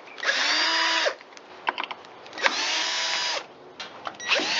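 Power drill-driver backing out engine-cover screws in three runs of about a second each. The motor whine rises as it spins up, holds steady, and falls as it stops, with light clicks between the runs.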